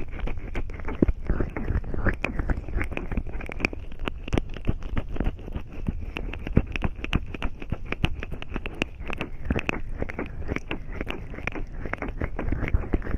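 Fingers massaging cream and oil over an ear-shaped ASMR microphone, around and behind the ear. The sound is close, continuous rubbing full of dense, irregular crackles and clicks.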